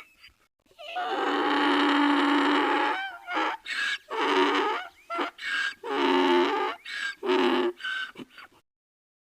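Donkey braying: one long drawn-out cry, then a run of shorter alternating hee-haw cries that cuts off abruptly near the end.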